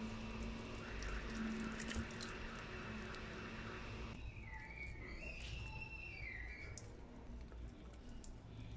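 Faint wet squishing and small clicks as hands and a knife work the raw chicken meat to free a wing bone. Under it a steady low hum stops abruptly about four seconds in, and then a faint high tone wavers up and down for a few seconds.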